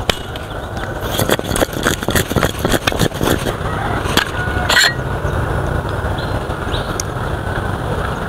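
Fruit pieces and chili salt sauce rattling and knocking inside a stainless-steel cocktail shaker as it is shaken fast, for about two and a half seconds. A couple of sharp metallic knocks follow as the shaker is handled and opened, then a steady low rumble.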